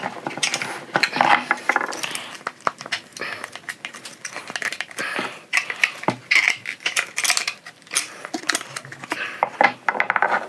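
Irregular metallic clicks and clinks of hand tools and the heater blower motor's parts being handled, as the part is worked loose from the motor.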